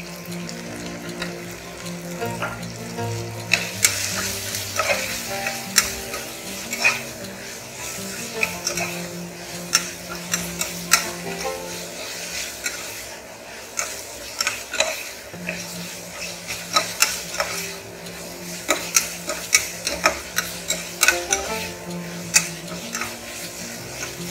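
A steel slotted spoon stirring and scraping an onion-tomato masala in a stainless steel pressure cooker, with frequent sharp clicks of metal on metal over a steady sizzle of frying. The spice powders are being fried into the base.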